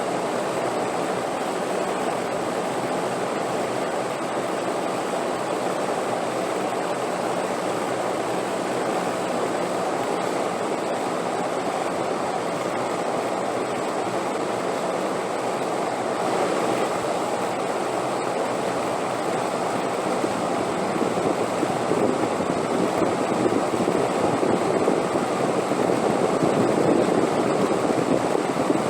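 Wind blowing steadily as a continuous rushing noise, swelling louder in gusts during the last several seconds.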